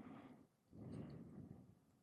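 Near silence, with two soft breaths close to a sensitive microphone: a short one at the start and a longer one of about a second just after.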